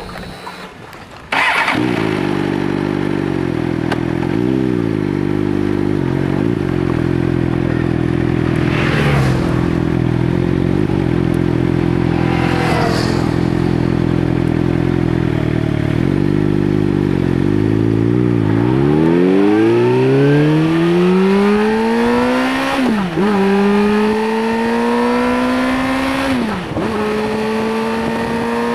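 Suzuki GSR 600 motorcycle's inline-four engine, restricted to 25 kW, idling steadily. About two-thirds of the way in it pulls away and revs up through the gears, with the pitch climbing and dropping back at two upshifts.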